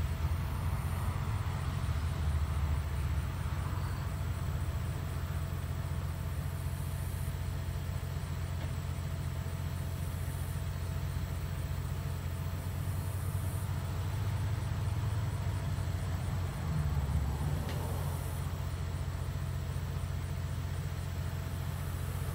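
Parked box delivery truck's engine idling: a steady low rumble, swelling briefly near the end.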